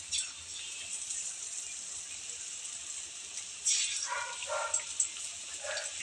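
Batter-coated eggplant slices frying in hot oil in a steel kadhai: a steady sizzle with fine crackling, which surges louder a little past three and a half seconds in as another slice is slipped into the oil. A few short pitched sounds come from the background near the end.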